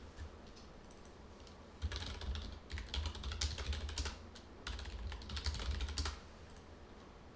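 Typing on a computer keyboard in two quick runs of keystrokes, starting about two seconds in and again about four and a half seconds in, stopping about six seconds in.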